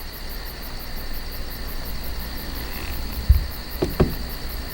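Crickets chirping in a rapid, even pulse, a night-time insect chorus. A low thump sounds about three seconds in, with two short knocks just after.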